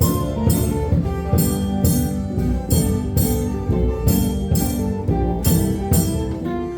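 Small instrumental ensemble playing a song arrangement: a melody over plucked strings, with a steady percussion beat at about two strokes a second.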